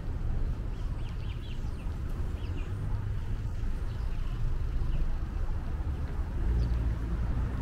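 Small birds giving scattered short chirps, mostly in the first few seconds, over a steady low rumble of traffic and wind on the microphone.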